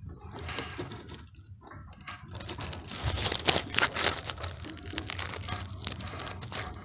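A hen shifting about in her nest, making a dry crinkling, crackling rustle of straw bedding. It swells loudest around the middle.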